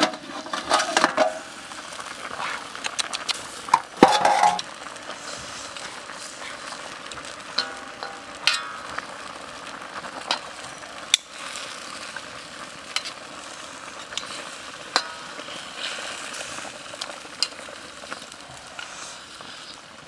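Pork ribs bubbling and sizzling in a wok, with metal tongs clicking against the pan now and then as the ribs are turned. A louder metal clatter in the first second or so and again about four seconds in, as the metal basin covering the wok is handled.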